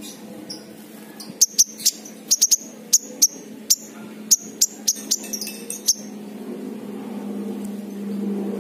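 King konin sunbird giving a quick, uneven run of about fifteen short, sharp, high chip calls, starting about a second and a half in and stopping about six seconds in.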